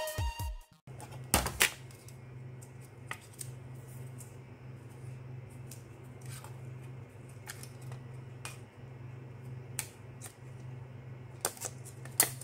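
A handled stack of COB LED panels: scattered sharp clicks and taps as the panels knock against each other, over a steady low hum.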